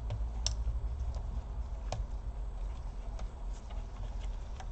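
A few light clicks and ticks of small laptop parts and cables being handled, with a steady low hum underneath.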